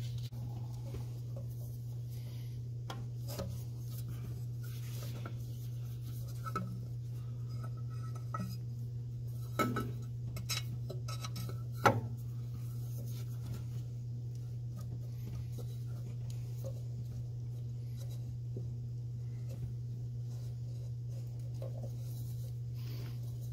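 Scattered light knocks and clicks of parts being handled as a rubber intake elbow is worked onto a turbocharger's compressor inlet, the sharpest two about ten and twelve seconds in, over a steady low hum.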